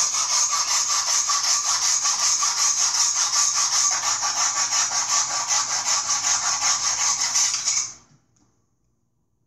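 Silky BigBoy folding pull saw cutting through a thick log in fast, even strokes, played back through computer speakers. The sawing stops suddenly about eight seconds in.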